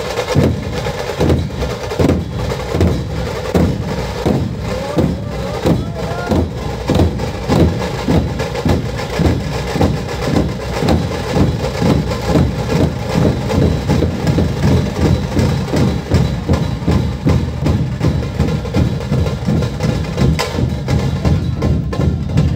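A troupe of large Maharashtrian dhol barrel drums beaten with sticks, playing together in a steady rhythm of about two to three strokes a second.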